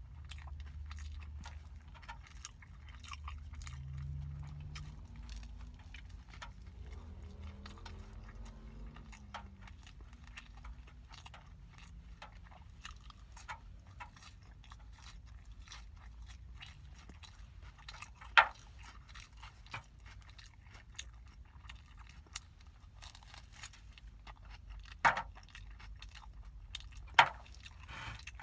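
Close-up chewing and biting of a hamburger on a crusty bun: soft wet mouth sounds and many small clicks, with three sharp, louder clicks in the second half.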